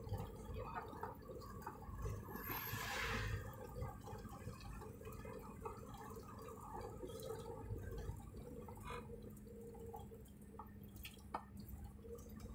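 Minibus engine and road rumble heard from inside the cabin, low and steady, with a brief hiss about two seconds in and a few faint clicks near the end.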